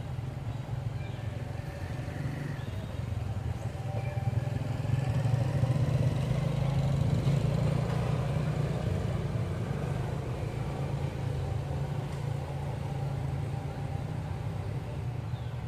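Engine of a passing motor vehicle: a steady low hum that swells over the first half and then slowly fades.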